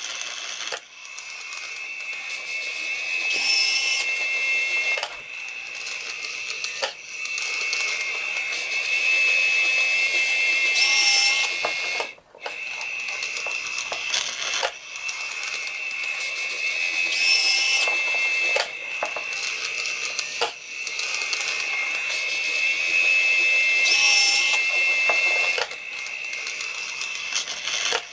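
Small model steam locomotive running laps around a track loop: its motor and gears give a steady high whine that swells and fades about every six and a half seconds as it circles, with a sharp click each lap as the wheels cross a rail joint or turnout.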